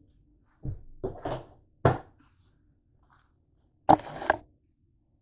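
Handling noise: a low thump, a short rustle and a sharp knock, then about four seconds in a loud sudden bump and scraping as the camera is picked up and moved across the counter.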